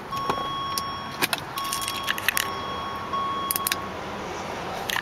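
Car keys jangling on their ring at the ignition of a 2005 Jaguar S-Type R as the key is handled after shut-down, in several short clinks. A steady electronic warning tone from the car sounds in long stretches with short breaks.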